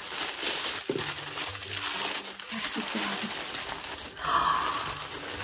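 Wrapping crinkling and rustling as a gift is pulled out of it and unwrapped, with a louder crinkle about four seconds in.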